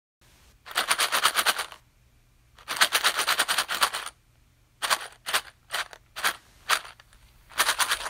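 Push pins being shaken: two rattling bursts of about a second each, then several separate clicks, and another rattle near the end.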